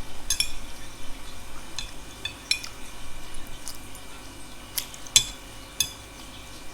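Cutlery clinking against a bowl of noodles while eating, a scattered run of short, sharp clinks, some with a brief high ring.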